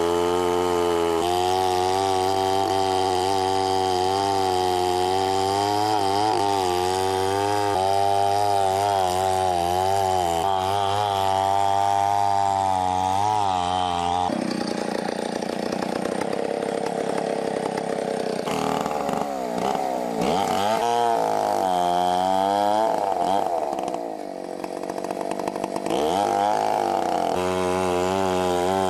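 Chainsaw engine running at high revs, its pitch wavering, then dropping and rising again several times in the second half. The sound changes abruptly about a second in and again midway.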